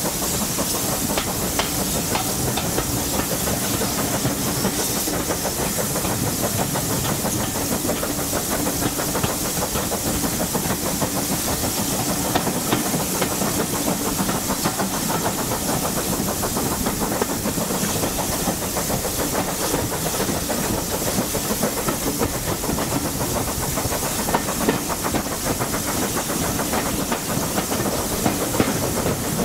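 A steam-hauled train running, heard from a carriage window: a steady rushing hiss of wind and wheels on the rails, with faint, quick clicks of the track throughout.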